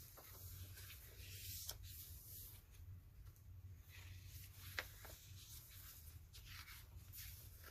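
Faint rustling and handling of paper journal pages and cards, with a light tap about five seconds in, over a steady low hum.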